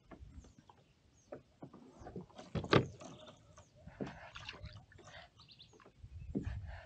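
Irregular knocks and clicks of gear handled in a kayak, the loudest knock a bit under three seconds in, with faint bird calls.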